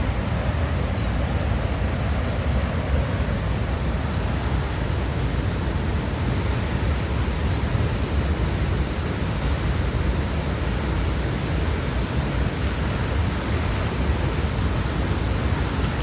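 Steady, loud rush of fast-flowing water from a rain-swollen river, with a deep rumble underneath.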